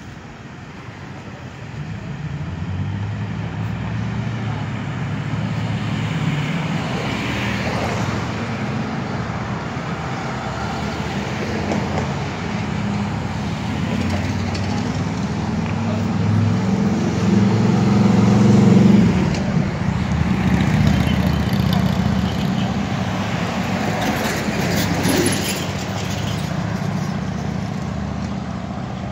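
Low rumble of a motor vehicle engine with street traffic noise, swelling loudest a little past the middle and then easing off.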